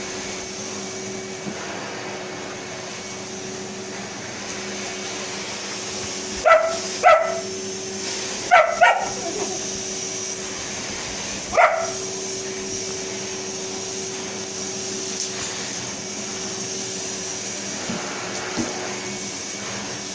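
Henry canister vacuum cleaner running steadily with a constant hum, while a dog barks: two sharp barks about six seconds in, two more about two seconds later, and a single bark near the twelve-second mark.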